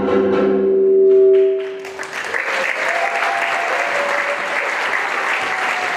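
A song's final held chord rings out and stops about two seconds in, then an audience applauds.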